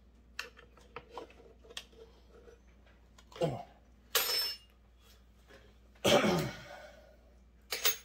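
A man coughing and clearing his throat several times, loudest about six seconds in, with a short hissing burst around four seconds. Faint light clicks of a hex key against the cut-off saw's metal come in the first two seconds.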